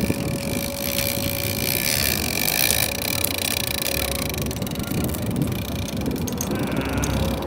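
Fishing boat's engine running steadily, with wind blowing across the microphone.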